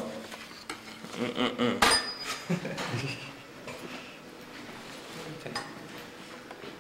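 Crockery and cutlery clinking at a breakfast tray, a scatter of small knocks with one sharp ringing clink about two seconds in.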